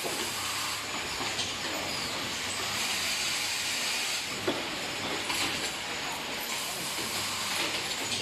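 Automatic caster-assembly machine running, with its vibratory bowl feeders and pneumatic stations: a steady hissing, rattling din over a faint low hum, with scattered clicks and one sharper click about four and a half seconds in.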